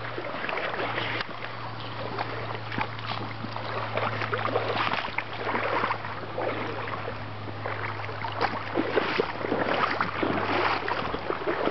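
Shallow river water rushing and splashing close by, with irregular sloshes as if stirred by wading legs, over a steady low hum.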